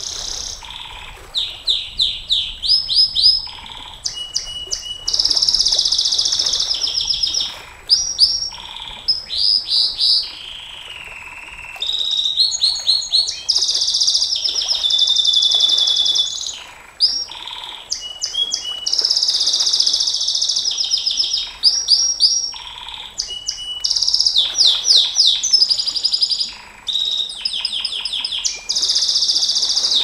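Domestic canary singing a long, unbroken song: runs of quick repeated high notes alternating with long, very fast trills of two to three seconds each.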